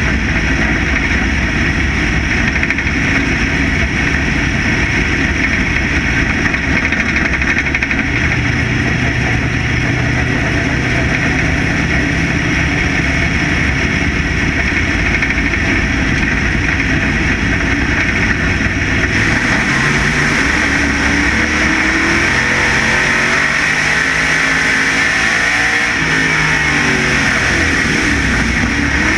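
Factory stock dirt race car's engine running hard, heard on board with road and wind noise. The pitch holds fairly steady for about two-thirds of the time, then falls and climbs back near the end as the car eases off and gets back on the throttle through a turn.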